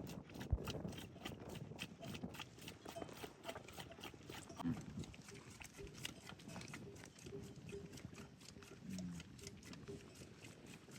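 Livestock sounds: many fine clicks and scuffs throughout, with a short low call about halfway through and another near the end.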